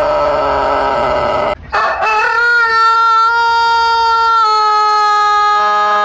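Rooster crowing. One call breaks off about a second and a half in. After a brief pause a new, very long crow begins at a steady pitch, dips slightly past the middle and is still going at the end.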